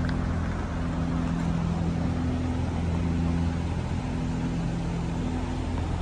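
Steady low mechanical hum made of a few fixed low tones that hold without rising or falling, under an even background noise.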